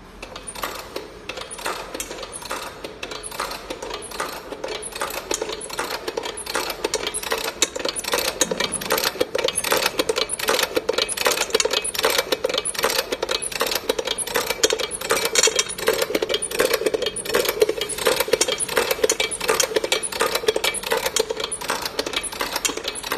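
Hand-cranked single-punch tablet press running: a fast, even metallic clacking of the punch mechanism at each turn, growing louder over the first several seconds, with small pressed tablets clinking into a stainless steel bowl.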